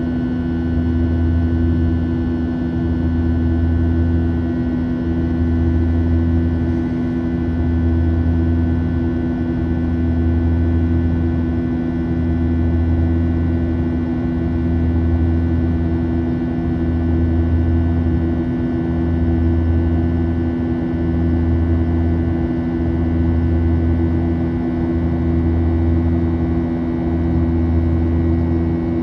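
Cabin drone of a Boeing 737-800 in flight, heard from a window seat beside the wing: its CFM56-7B jet engines running steadily. A low throb swells and fades about every two seconds.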